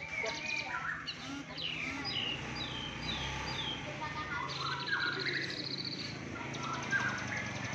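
Kept songbirds chirping: a run of quick downward-sliding chirps, then a high, buzzy trill about five seconds in.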